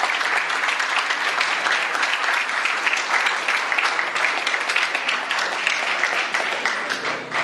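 An audience applauding steadily, many hands clapping.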